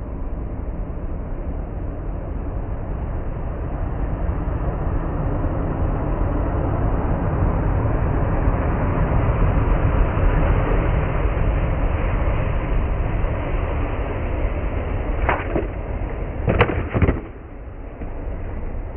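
A pickup truck drives past, its low rumble building to a peak about halfway and then fading. Near the end come three sharp clacks of a skateboard deck being popped and slapping down on the concrete sidewalk.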